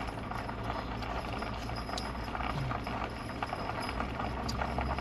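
Vehicle engine running low and steady, heard from inside the cabin, with scattered light clicks and rattles.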